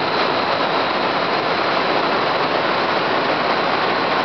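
Large wind-tunnel-style fan running steadily, a loud, even rush of air with a faint high whine.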